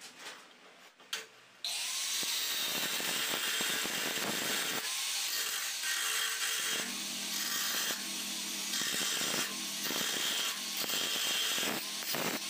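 Handheld angle grinder with a thin cut-off disc cutting through a round steel pipe. A few light knocks as the pipe is set on the steel bench come first; the grinder starts cutting about two seconds in and grinds loudly and steadily, with brief dips in the noise now and then.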